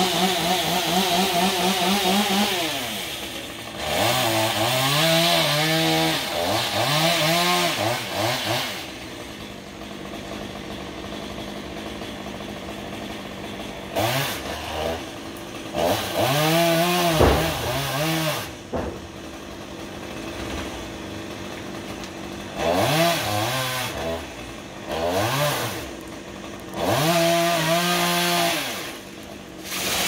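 Two-stroke chainsaw revved in repeated bursts, its pitch climbing and falling each time, dropping back to a lower idle between bursts, with a longer idle stretch about a third of the way in.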